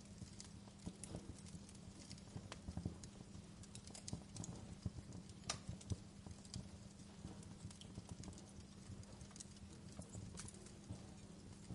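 Wood fire crackling in a fireplace: irregular sharp pops and snaps, some louder than others, over a steady low rumble.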